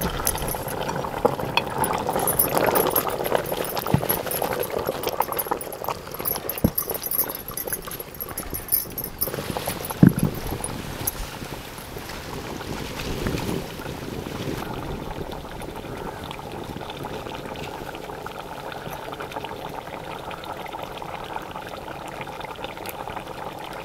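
Fish curry bubbling at a boil in a large metal pot, a steady simmering hiss with a few light knocks.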